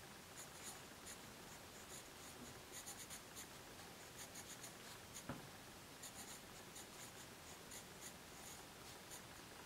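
Faber-Castell graphite pencil writing small hand lettering on paper: faint, quick scratchy strokes in short runs, with one light tap about halfway through.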